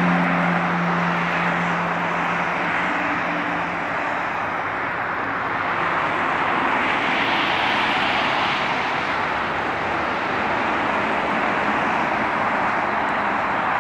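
Steady highway traffic noise of tyres and passing trucks, with a truck's low engine hum fading in the first few seconds and a vehicle swelling past about halfway through, mixed with the jet engines of a Boeing 737-700 on landing approach.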